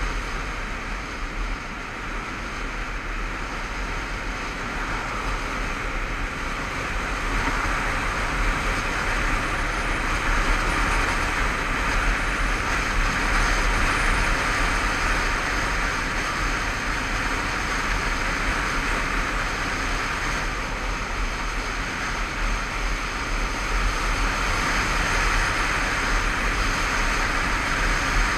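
Wind rushing over the camera and a Honda CBF500 motorcycle running along at road speed, a steady rushing noise that swells louder about a third of the way in and again near the end.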